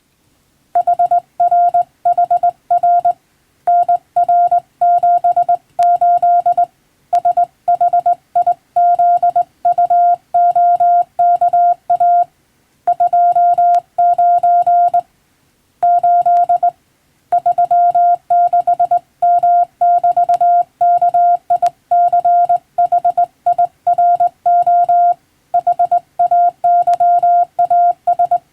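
Morse code (CW) sent by hand on a telegraph key and heard as a sidetone of about 700 Hz, keyed rapidly on and off in dots and dashes, with short pauses between letter and word groups; the text is English-language practice telegram copy.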